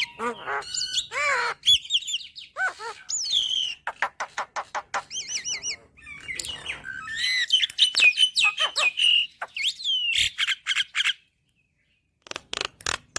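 Javan myna singing: a varied, chattering jumble of whistled up-and-down glides, squeaky notes and rapid clicking rattles, with a pause of about a second near the end.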